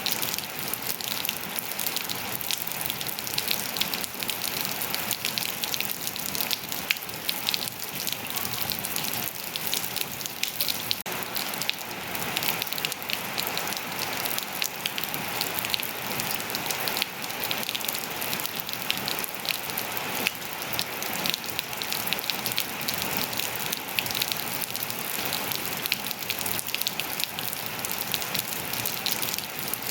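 Steady rain falling on hard surfaces and foliage, a dense even hiss full of the patter of individual drops.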